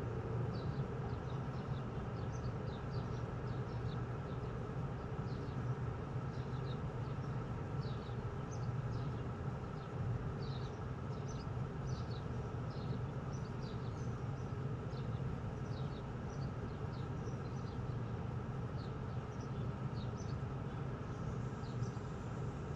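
A steady low hum, with small birds giving many short, high chirps scattered throughout.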